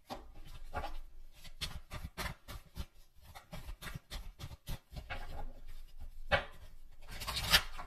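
A tarot deck being shuffled by hand: a quick, irregular run of soft card slaps and rubs, with a louder pair of slaps near the end.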